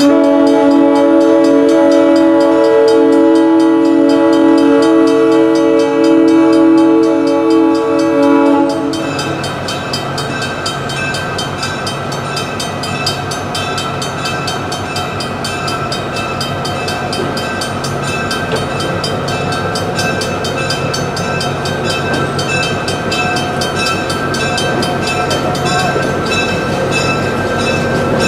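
Train horn sounding one long chord-like blast of about nine seconds, which cuts off, and then the train rolling on with a steady rumble.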